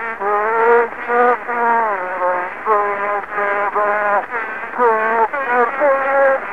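A man chanting Kyrgyz epic verse in short recited phrases, heard from a 1903 wax phonograph cylinder: thin and narrow-toned over a faint steady hiss and hum.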